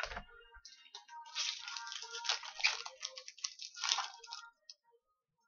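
Crinkling rustle of a foil trading-card pack and cards being handled, a rapid run of crackly noise for about four seconds after a soft thump at the start.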